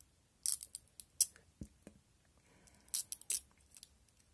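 Short, sharp crinkles of a thin plastic film and small clicks of metal tweezers as a replacement phone camera lens cover is worked free of its protective plastic backing. The sounds come in two clusters, one in the first second and a half and another about three seconds in.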